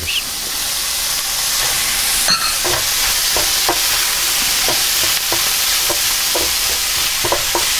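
Diced pig's ears sizzling as they go into a hot frying pan with onion, ginger and chicken liver, with a steady hiss. A wooden spoon stirs and knocks against the pan about twice a second, after a sharp clink a little over two seconds in.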